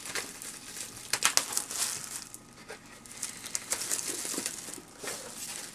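Plastic wrapping on a sealed trading-card box crinkling and tearing as it is opened, in an irregular run of crackles.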